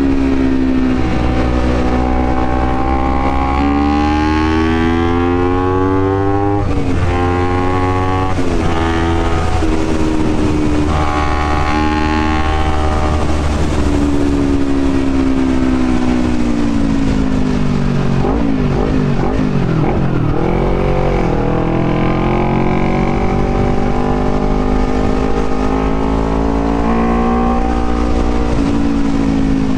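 Honda CBR250RR motorcycle engine with an open air filter, ridden and revved through the gears. Its pitch climbs and then drops sharply at each shift, and it falls and wavers while slowing down around two-thirds of the way through.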